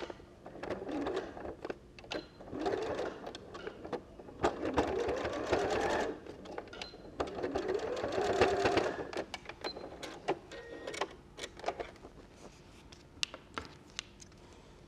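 Electric sewing machine stitching in four short runs, the motor speeding up and slowing down with each run. A few light clicks and taps follow near the end.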